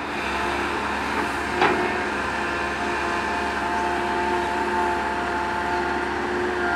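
Komatsu PC130 hydraulic excavator's diesel engine running steadily under load while the boom lowers and the bucket digs into the earth, with a few held tones over the engine noise. A single sharp clank comes about a second and a half in.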